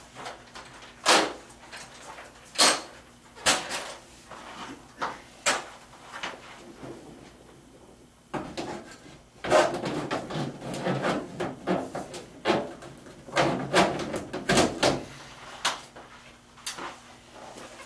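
Irregular knocks, clicks and rattles, with a longer stretch of scraping and rustling about halfway through, from handling a portable air conditioner's exhaust duct kit as it is fitted to the condenser side and put up into the ceiling.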